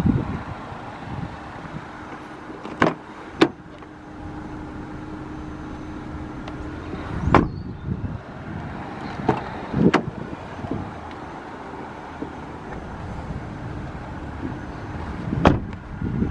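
Steady low background noise with about half a dozen short, sharp knocks scattered through it.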